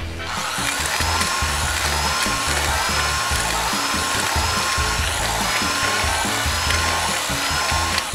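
Power saw cutting wood, a steady noisy buzz with a faint, slightly falling whine, laid over background music with a steady beat.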